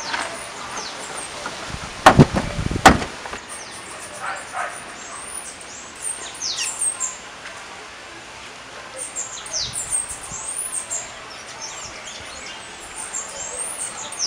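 Wild birds chirping, with many quick high rising and falling calls. About two seconds in come two heavy thuds less than a second apart, the loudest sounds.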